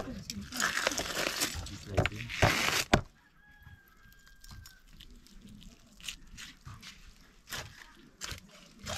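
Loud rustling and scraping with sharp clicks, which stops suddenly about three seconds in. A faint, drawn-out animal call of steady pitch follows, lasting about a second and a half, with a few scattered clicks after it.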